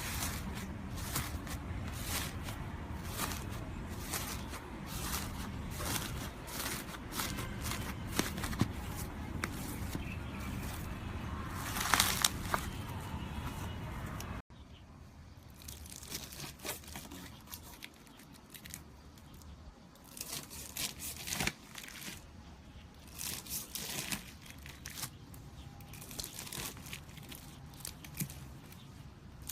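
Slime being squeezed and stretched by hand, with dense sticky crackling and popping clicks. About halfway through it cuts abruptly to a quieter stretch of the same kind of crackling.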